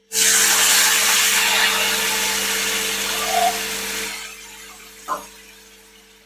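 Ingredients hitting hot oil in a pan: a loud sizzle that starts suddenly and dies down over about four seconds, with a faint steady hum underneath.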